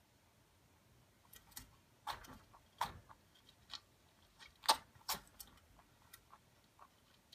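Baby Holland Lop rabbit sneezing several times in quick succession, short sharp sneezes, with small crunching clicks of pellets being chewed in between.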